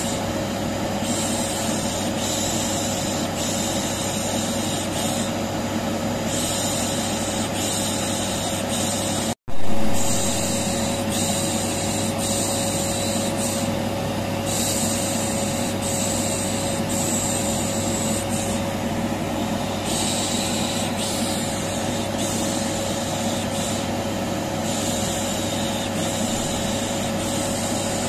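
Vacuum cleaner running steadily with a continuous hum, overlaid with a person's repeated 'shhh' shushing that comes and goes every second or two. The sound cuts out for an instant about nine seconds in and comes straight back.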